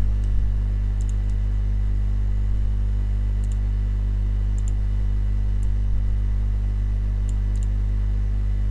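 Steady low electrical mains hum and buzz, with faint computer mouse clicks scattered through, several in quick pairs like double-clicks.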